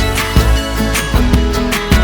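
Background music: an upbeat acoustic guitar track with a steady beat.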